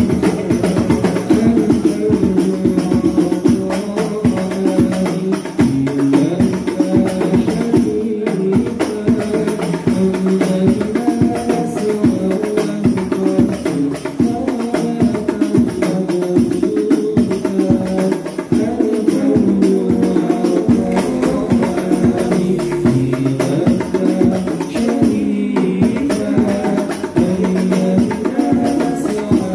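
Hadroh ensemble: several hand-struck frame drums (rebana) play a dense, fast interlocking rhythm under two men singing into microphones.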